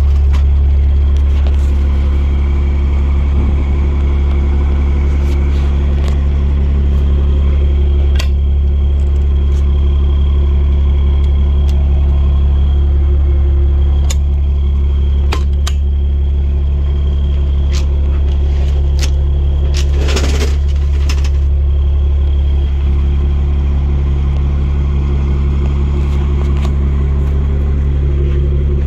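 Fire truck's Cummins diesel engine idling steadily, a deep even hum, with scattered light clicks and knocks over it and a brief rustling noise about twenty seconds in.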